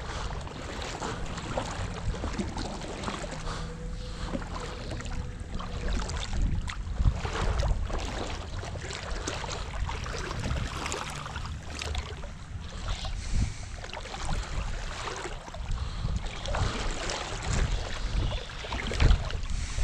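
Water splashing and dripping as a wet rope is hauled in hand over hand, dragging a fishing magnet across the creek bottom toward the shore. Wind rumbles on the microphone throughout.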